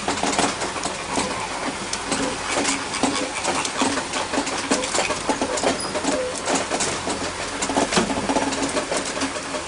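Open-sided safari truck moving along a rough dirt track, its engine running under a dense, steady clatter of rattles and knocks.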